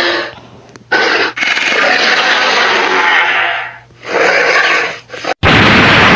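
Ultraman-style sound effects: loud hissing noise in several stretches with short dips between them, cut off sharply near the end and followed at once by a different loud effect.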